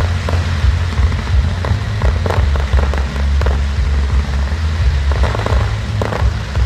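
Fireworks crackling and popping in quick scattered bursts over music with a deep, steady bass.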